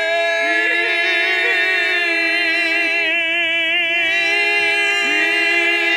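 Operatic male tenor voices holding long sung notes in harmony, with a wide, even vibrato; the pitch steps slightly a few times, about half a second and five seconds in.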